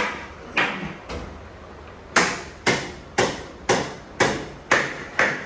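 Hammer blows on kitchen cabinet parts being fitted: a couple of separate strikes, then a steady run of about two strikes a second.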